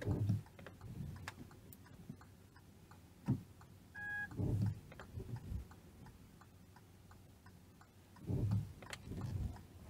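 Car turn-signal indicator ticking steadily inside the cabin, with one short electronic beep about four seconds in and a few soft low thumps.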